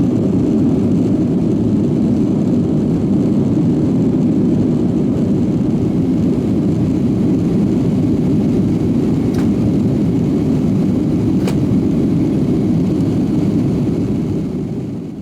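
Steady roar of a Boeing 757-300's jet engines and airflow heard inside the main cabin from a window seat, fading away near the end.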